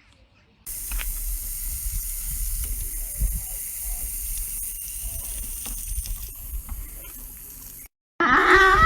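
A steady hissing noise with a low rumble and a few faint clicks, which cuts off abruptly. Just after, a cow begins mooing loudly near the end.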